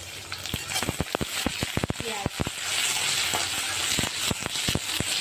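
Chopped onions sizzling in hot oil in a kadhai, with the sharp clacks of a metal spatula stirring against the pan. The sizzle grows louder and steadier about two and a half seconds in, as the onions are turned.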